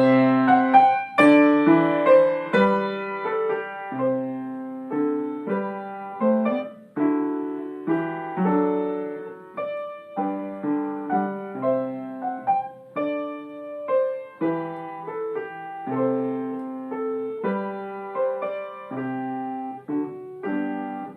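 A piece played on the piano, with chords and a melody, starting loud (forte) and growing softer (decrescendo) down to a quiet piano.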